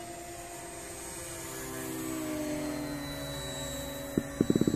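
Radio-controlled model airplane's motor running steadily as it flies past, its pitch falling as it goes by about two seconds in. A quick series of loud thumps near the end.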